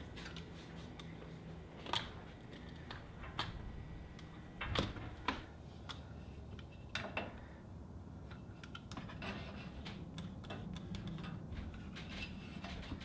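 Scattered clicks, taps and small knocks of hand work: a utility knife cutting and trimming the rubber garage door seal against the metal door track. There are a few sharper knocks in the first half and a run of quicker small ticks near the end.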